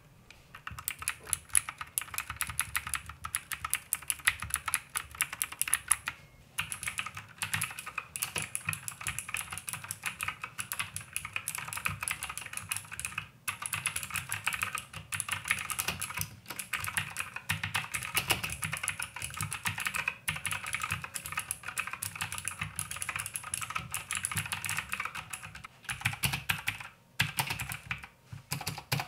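Steady, fast typing on a Royal Kludge RK61 compact mechanical keyboard with clicky Gateron blue switches: a dense run of key clicks, broken by a few short pauses.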